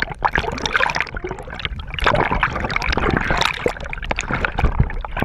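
Water splashing and sloshing irregularly against a kayak hull, a busy run of short splashes and gurgles.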